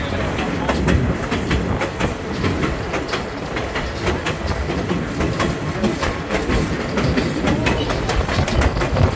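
Passenger train rolling along the track, heard from an open-air car: a steady rumble of wheels with frequent irregular clicks and knocks over the rails.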